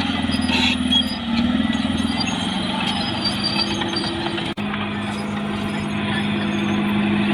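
Caterpillar D6R bulldozer's diesel engine running. There is a brief break about four and a half seconds in, after which it holds a steadier pitch.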